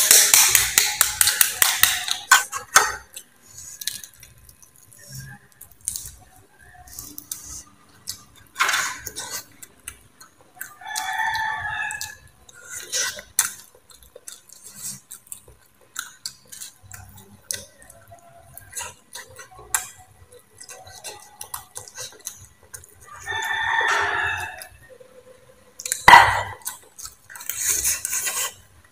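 Boiled egg shell crackling as it is peeled, then scattered spoon clicks and eating sounds. A rooster crows twice in the background, each crow about a second long.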